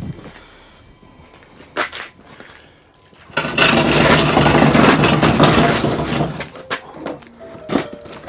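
Two wooden knocks, then a power tool starts about three and a half seconds in and runs loudly for about three seconds before going on in short stop-start spurts near the end.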